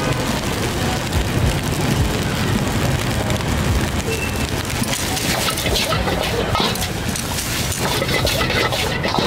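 Busy street-food market ambience: a steady, dense hiss with a low rumble underneath and voices in the background.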